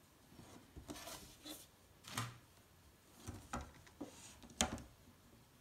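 Faint handling noise on a desk: about half a dozen soft knocks and rustles at uneven gaps, the sharpest one about two-thirds of the way through.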